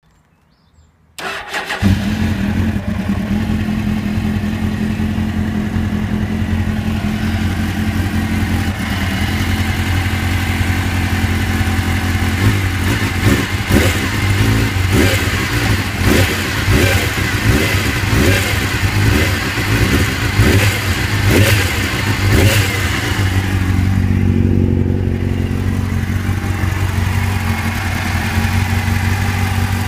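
A 1999 Suzuki GSX-R750 inline-four engine starts about a second in and idles, its coolant at 65 °C. Through the middle the throttle is blipped repeatedly, then it settles back to idle. The engine makes the ticking noise that is being recorded for diagnosis.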